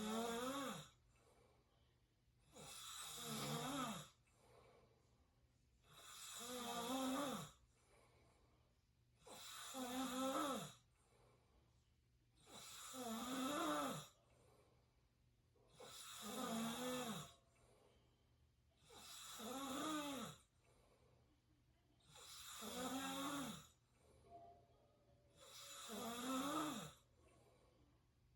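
A sleeping person snoring through an open mouth, with regular snores about every three seconds, each lasting a little over a second, and quiet gaps between them.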